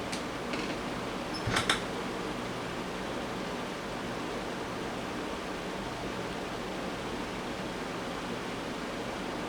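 Room tone: a steady hiss with a faint low hum, broken by a couple of small clicks and a brief knock about a second and a half in.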